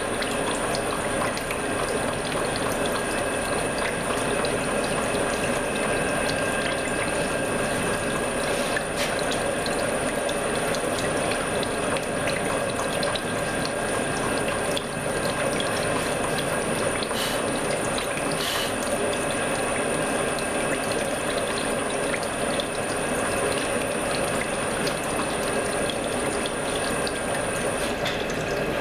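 CNC milling machine hobbing a helical gear with a worm hob cutter: steady machining noise with a constant high whine, running without a break.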